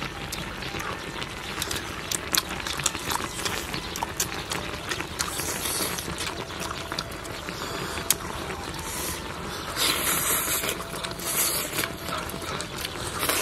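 People eating at a table: scattered sharp clicks and knocks of chopsticks on bowls and the grill pan, with a few short bursts of slurping, over a steady hiss.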